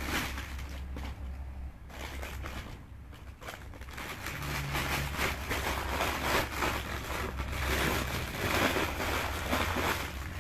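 Rustling handling noise as clothes are picked up and sorted close to the microphone, growing denser and louder about four seconds in, over a steady low hum.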